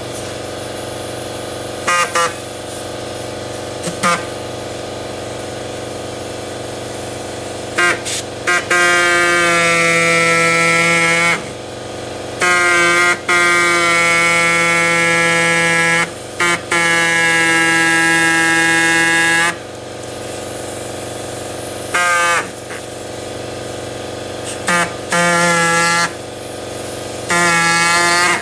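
Bladed power tool buzzing in repeated bursts as it cuts rubber lugs off a lawnmower tire: short blips and several runs of two to three seconds, over a steady hum.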